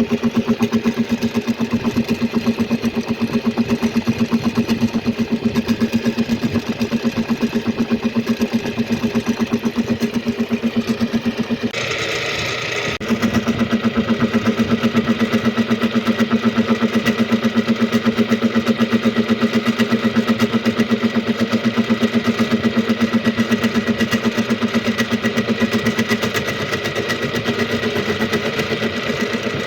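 Machine cutting the teeth of a replacement lathe gear, running steadily with a fast, even pulsing. About twelve seconds in the hum breaks off for about a second with a higher hiss, then the cutting resumes.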